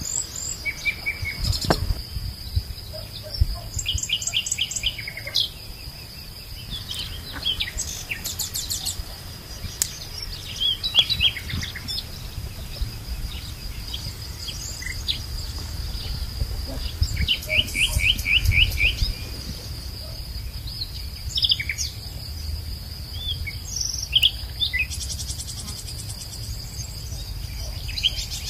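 Small birds chirping, with short calls and quick trills in bursts, over a steady high insect drone. A few scattered soft knocks.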